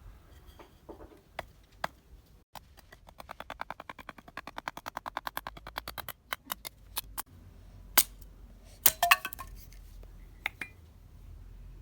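Axe splitting small kindling sticks: scattered taps, then a fast even run of light clicks, then a few sharp strikes on the wood near the end, with a brief cracking ring as a piece splits.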